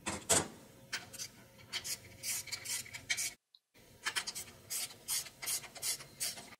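Ratchet wrench clicking in quick back-and-forth strokes as it snugs down differential bearing cap bolts, with a brief silent break a little past three seconds in.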